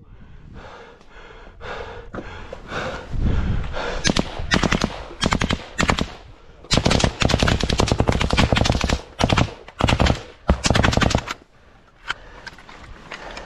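Automatic gunfire in rapid bursts, starting about three seconds in, with one long burst near the middle, and stopping about two seconds before the end.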